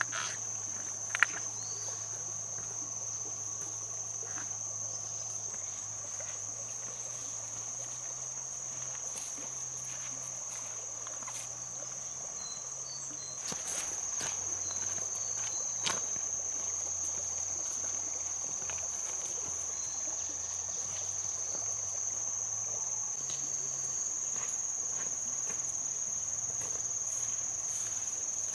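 Steady, unbroken high-pitched insect chorus, with a few faint clicks scattered through it.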